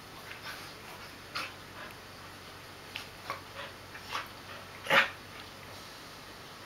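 Dog making several brief, soft sounds spaced through the stretch, the loudest and sharpest about five seconds in.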